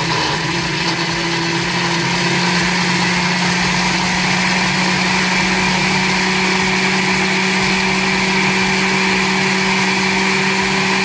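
Countertop blender motor running on low, pureeing habanero peppers and cooked carrots with vinegar into a thick hot sauce. It holds one steady pitch, a loud, even whir.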